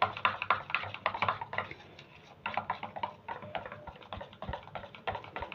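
Metal spoon clicking and scraping against a steel bowl as it stirs thick gram-flour batter, in quick irregular strokes with a brief pause about two seconds in.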